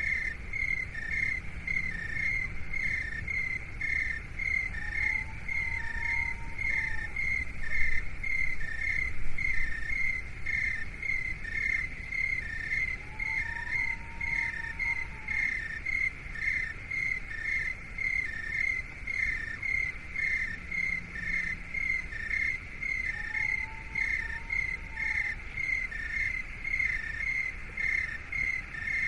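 Cricket-like chirping in an even, unbroken rhythm of about one and a half chirps a second, alternating between two close high pitches. A soft tone rises and falls about every eight to ten seconds, over a low, steady rumble.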